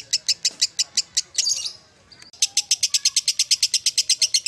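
Fischer's lovebird singing its long 'ngekek' chatter: a fast, even string of high, sharp chirps at about ten a second. About a second and a half in it breaks into a short, harsher burst and a half-second pause, then the rapid chirping starts up again.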